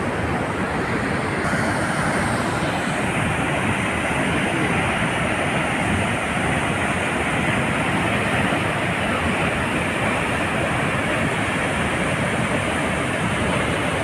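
A large waterfall's white water rushing steadily as it plunges through a rocky gorge into a churning pool: a loud, even rush that does not let up.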